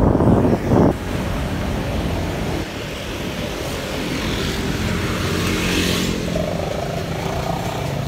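Wind buffeting the microphone for about the first second, then road traffic: motor vehicle engines running close by.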